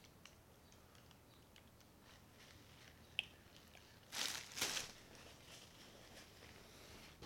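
Plastic shopping bag rustling and crinkling in two short bursts a little over four seconds in, with a single light click shortly before; otherwise faint room tone.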